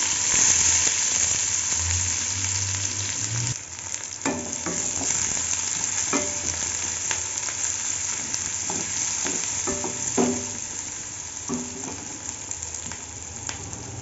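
Chopped onion, garlic and green chilli sizzling in hot oil in a metal kadai. The sizzle is loudest at first and eases a little about three and a half seconds in. A wooden spoon stirs the mix and now and then knocks and scrapes against the pan.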